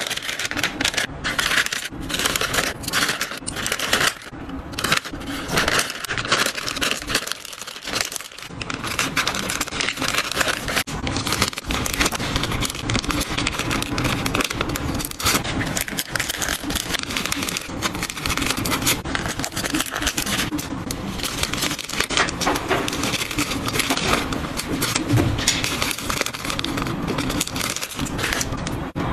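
Close-up crinkling and rustling of plastic bags and paper packaging handled by hand, with many small clicks and taps of items being moved and packed.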